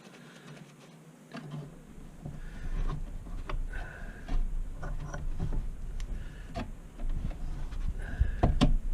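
Hand tools and metal brake parts clicking and knocking irregularly as a motorcycle rear brake caliper is worked on during a pad change, over a low rumble that starts about a second and a half in.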